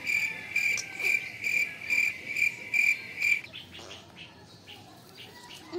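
A cricket chirping in a steady rhythm, about two chirps a second, stopping about three and a half seconds in.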